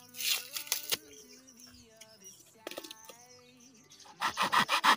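A knife sawing through the thick rolled-cardboard tube of a sky shot firework in quick back-and-forth strokes, starting near the end. Before that, short rustles and crackles as the cardboard tube is handled, with faint bird chirps behind.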